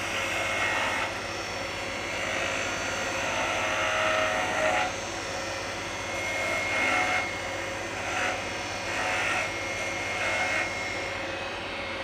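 Wood lathe running with a steady hum while a hand-held turning tool makes light, slow finishing cuts on a spinning maple spindle, the hiss of the cut coming and going in a series of short strokes.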